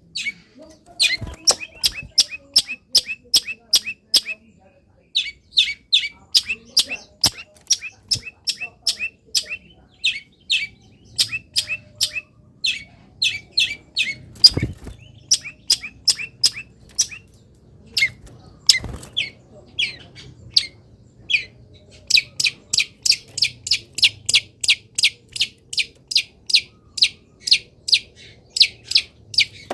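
Long-tailed shrike (cendet) singing loudly in fast runs of short, sharp repeated notes, about four a second, broken by brief pauses. Two dull thumps sound about halfway through.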